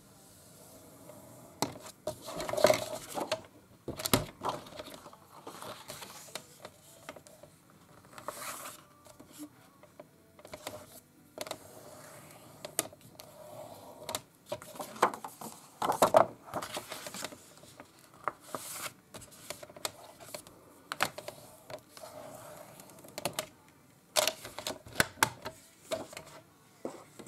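Paper being scored, folded and handled on a plastic scoring board: a stylus drawn along the board's grooves, the sheet rustling as it is folded, and a bone folder rubbing along the crease, with scattered clicks and taps throughout.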